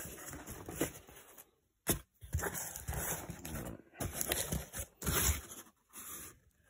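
Cardboard box flaps being pulled open and handled: irregular rustling and scraping of cardboard and bubble wrap, with one sharp snap about two seconds in.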